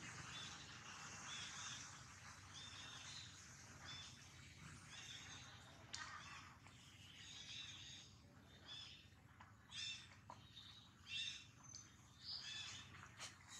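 Faint bird calls: short chirps repeated over and over, against a quiet outdoor hiss, growing busier in the second half.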